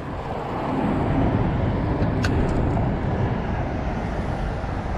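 Steady low rumble of traffic on a nearby highway bridge, with one sharp click a little over two seconds in.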